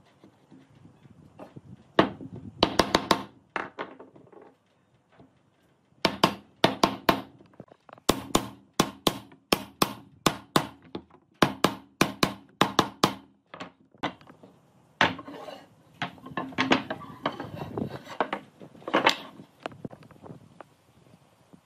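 Hammer knocking a wooden rail down onto the ends of upright wooden slats to seat the joints: runs of quick, sharp knocks with short pauses between them.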